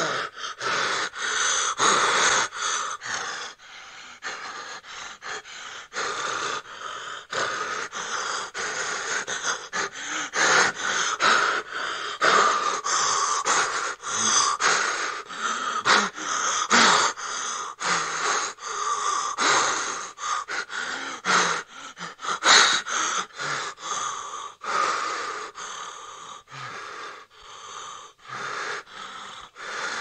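A person breathing in fast, ragged, irregular gasps: frightened breathing. One sharper gasp comes a little past the middle.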